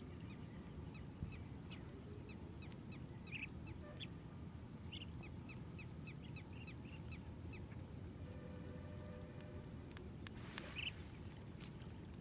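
Birds calling in a rapid series of short, high chirps for the first several seconds, over a low steady background rumble. A few sharp clicks come about ten seconds in.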